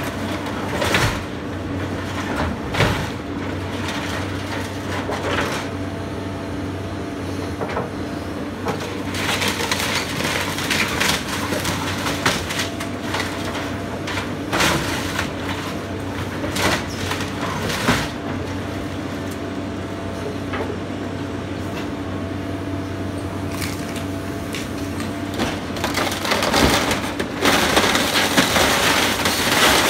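Doosan tracked excavator's diesel engine running steadily while its bucket tears apart a wood-framed house, with repeated cracking of breaking timber and crashes of falling debris. The crashing grows louder and more frequent near the end.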